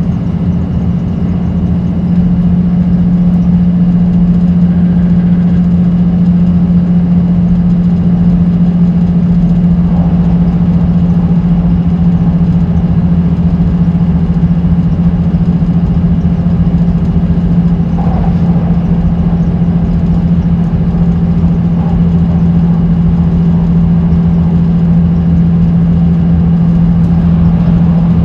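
Train running at steady speed, heard from inside the cab: a loud, steady hum over running noise from the wheels and car body.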